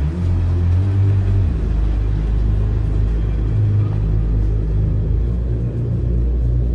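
Instrumental electronic music dominated by heavy, deep bass notes that shift in pitch every second or two.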